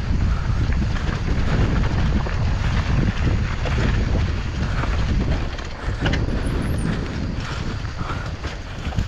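Wind rumbling on the microphone of a mountain bike riding down a dirt trail, with tyre noise and brief knocks and rattles from the bike.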